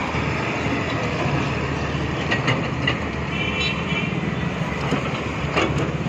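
Diesel engines of a crawler excavator and a wheel loader running under work, a steady heavy rumble. A few sharp metallic knocks come through around the middle and again near the end.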